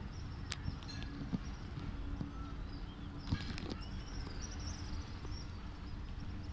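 Railway station platform ambience: a steady low rumble from diesel trains idling, with small birds chirping high above it and a few sharp clicks, the loudest cluster about three seconds in.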